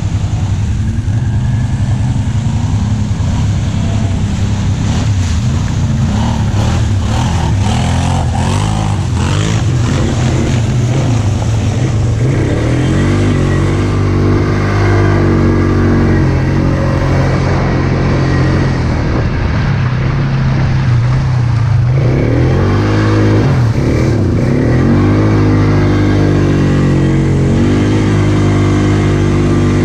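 ATV engine running as it is ridden through deep mud, the pitch climbing and dropping several times as the throttle is opened and eased off. A run of sharp knocks and rattles comes about six to nine seconds in.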